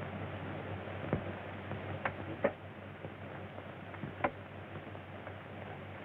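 Steady hiss and low hum of an old optical film soundtrack, with a few scattered sharp clicks about one, two and four seconds in.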